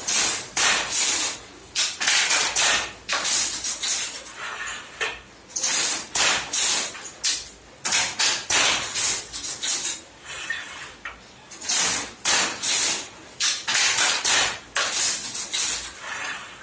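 Handloom with a border-turning attachment being worked: its wooden and metal parts clatter and knock in irregular runs of several strikes a second, with short pauses between runs.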